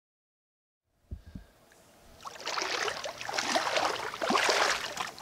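A few dull knocks, then water splashing and sloshing, dense and crackly, building up from about two seconds in.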